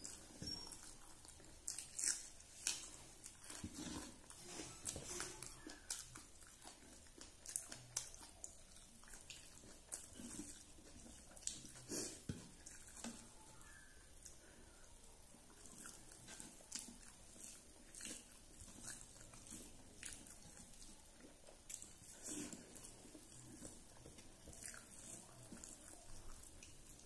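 Faint, wet eating sounds: fingers mixing rice and fish curry on a steel plate, with chewing and lip smacks, as irregular short clicks and smacks.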